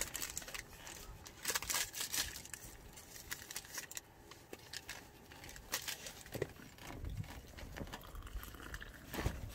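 Coffee-bag sachet crinkling and being torn open, loudest about two seconds in, with scattered handling clicks; near the end hot water is poured into a plastic mug.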